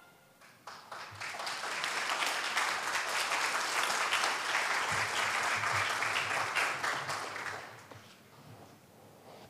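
Audience applause in a hall: it builds over the first couple of seconds, holds steady, and dies away about eight seconds in.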